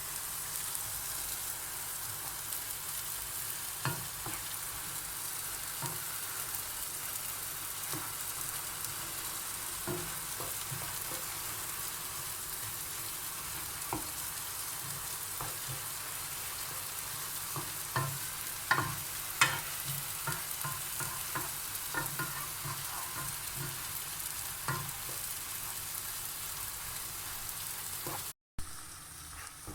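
Food frying in a pan with a steady sizzle, and a utensil stirring, knocking and scraping against the pan now and then, most often in the second half.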